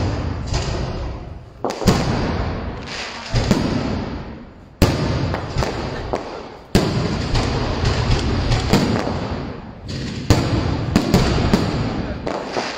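Aerial firework shells bursting overhead: loud bangs every one to two seconds, each trailing off in a long rumbling echo off the surrounding buildings, with quicker lighter reports near the end.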